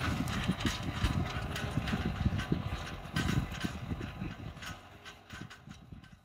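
Tractor pulling a tined harrow over dry ploughed clods: rapid, irregular rattling and clanking from the harrow over the low run of the engine, fading over the last couple of seconds.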